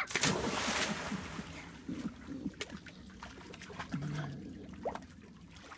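A child jumping feet-first into a swimming pool: a loud splash, fading over about a second, then quieter splashing and lapping water as he swims.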